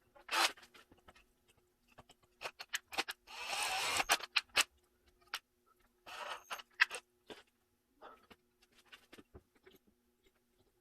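Hand tools and metal parts clicking and clinking now and then during work on an engine, with three short hissing or scraping bursts, the longest about three and a half seconds in, over a faint steady hum.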